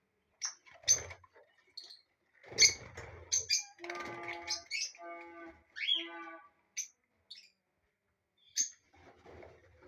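A colony of lovebirds chirping: sharp, high-pitched chirps in scattered bursts, with a denser stretch of buzzy, pitched chatter about four to six seconds in and a short lull near the end.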